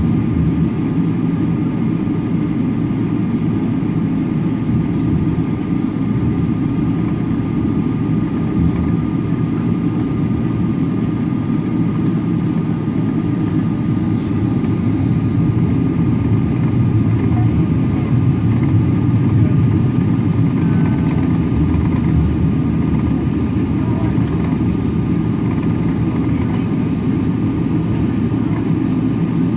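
Jet airliner cabin noise while taxiing: a steady low rumble from the engines at taxi power and the aircraft rolling along the taxiway, with a faint steady whine above it.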